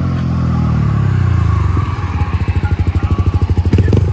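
Yamaha MT-15's 155 cc single-cylinder engine running through an aftermarket full-system exhaust: the revs fall away over the first two seconds and settle to idle, where the exhaust beats in a rapid, even pulse. A few sharp clicks sound near the end.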